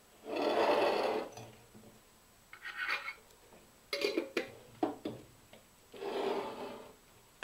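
A red plastic bowl scraping and rubbing against glass jars as sliced cucumbers are tipped into them, in three short rasping spells, with a few light knocks in between.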